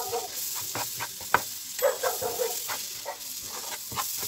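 A spatula scraping and tapping irregularly against a non-stick frying pan as flour and butter are stirred together into a roux over heat, with a light sizzle.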